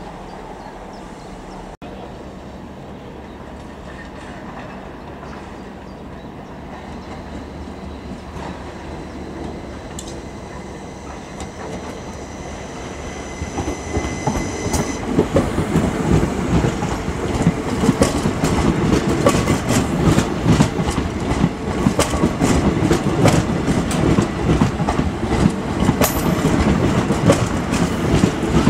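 A diesel multiple unit runs with a steady low rumble. From about halfway an electric multiple unit rolls past close by, louder, its wheels clattering over rail joints and pointwork.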